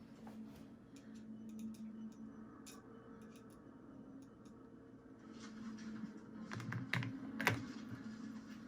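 Small clicks and taps of a screwdriver driving screws and of plastic box fan parts being handled, with a louder cluster of clicks near the end, over a steady low hum.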